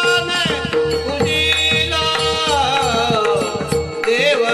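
Varkari bhajan: a voice sings long, held notes that bend and glide over a steady drone note, with hand-drum strokes keeping the beat.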